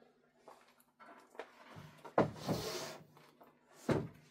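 Knocks and scraping from a small wooden bookshelf speaker cabinet being handled and set down on a wooden table, with two louder thuds, one about two seconds in and one near the end, over a faint steady hum.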